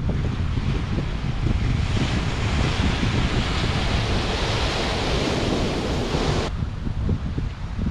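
Wind buffeting the microphone with a steady low rumble, over ocean surf breaking and washing up the beach. The surf hiss swells about two seconds in and cuts off suddenly near the end.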